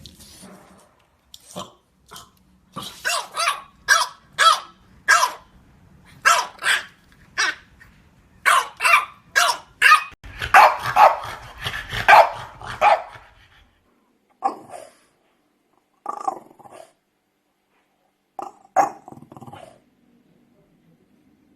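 French bulldog barking: a long run of short, rapid barks, then a few scattered single barks with pauses between them.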